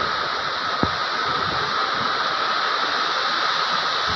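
Strong typhoon wind rushing and buffeting against a phone microphone: a steady, loud rushing noise, with a single sharp knock about a second in.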